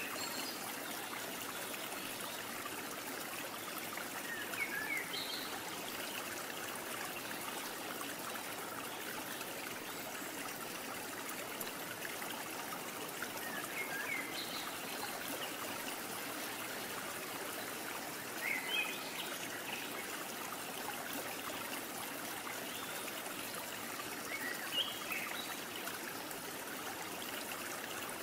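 Steady rushing noise like a flowing stream, with about five brief high chirps scattered through it.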